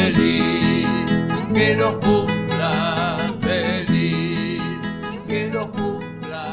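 Instrumental ending of a birthday song, with no singing, gradually fading out.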